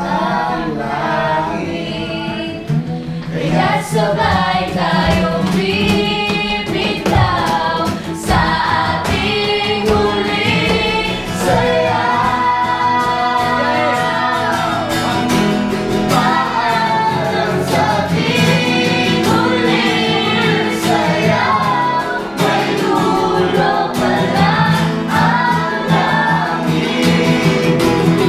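Music with several voices singing together over an instrumental accompaniment.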